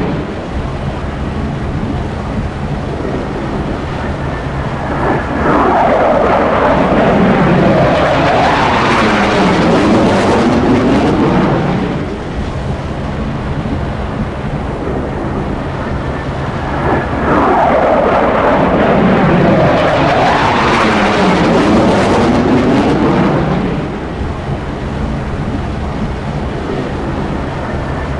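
Two F-16C fighter jets flying past one after the other, about twelve seconds apart; each jet's roar swells for several seconds with a sweeping fall and rise in pitch as it passes.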